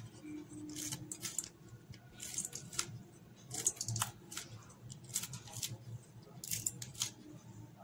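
Kitchen scissors snipping a green chilli into small pieces over a bowl of flour, a string of short crisp snips, often two or three in quick succession.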